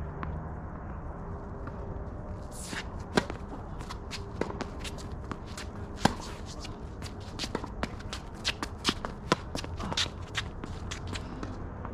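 Tennis play on court: two sharp knocks about three seconds apart, typical of racket-on-ball strikes, then a quick patter of footsteps and scuffing shoes in the last few seconds.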